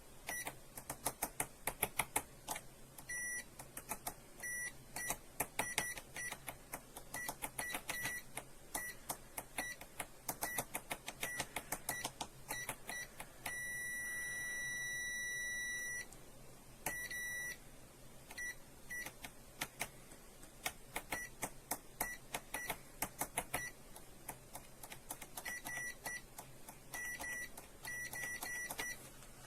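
Digital multimeter being handled: a rapid run of sharp clicks from its selector dial and buttons, with short beeps from its buzzer at many of the clicks. Near the middle it gives a long steady beep of about two and a half seconds, and a second, shorter one a moment later.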